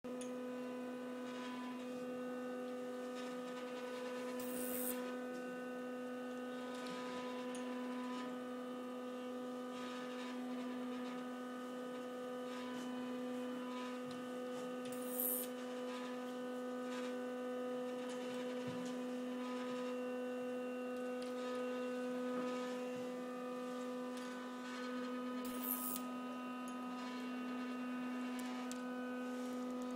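A steady electronic hum: one low tone with a stack of higher overtones held unchanged throughout, with a short hiss about every ten seconds.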